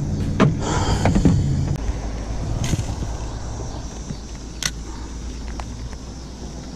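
A low, steady engine drone, like a vehicle passing, fades out about two seconds in. Over it come a few sharp clicks and knocks as a spinning rod and reel are handled in a kayak.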